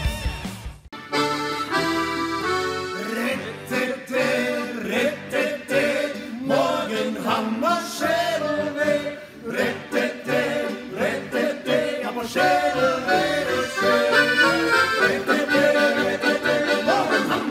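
Piano accordion playing a traditional folk tune, starting about a second in after a brief pause.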